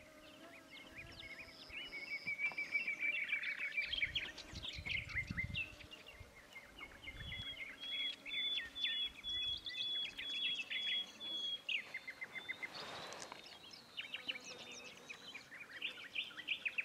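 Wild birds singing: many varied chirps, whistles and quick trills, with a brief rush of noise about thirteen seconds in.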